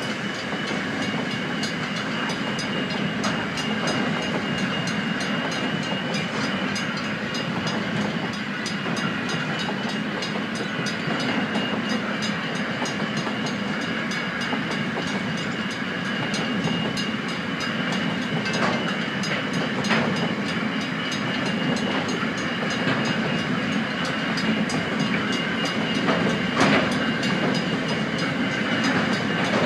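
Aurizon freight train's wagons rolling past across a level crossing: a steady rumble of wheels on rail with clickety-clack and a few sharper clanks near the end.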